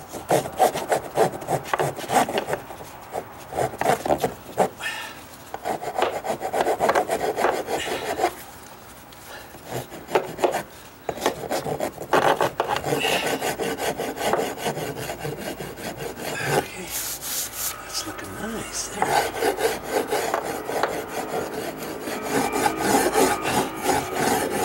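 Hand rasp scraping back and forth along the edge of a wooden deck stair in quick, continuous strokes, smoothing and blending out gouges, with a short pause about a third of the way through.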